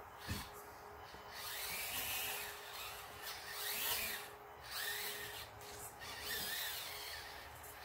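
Axial SCX24 1:24-scale RC crawler's small electric motor and gears whining as it drives, swelling and dropping away in several surges, rising and falling in pitch with the throttle.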